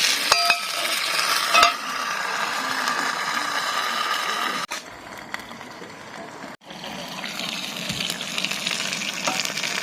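Food sizzling in a frying pan, with two light metallic clinks in the first two seconds. The sizzle drops away for a couple of seconds in the middle, then returns.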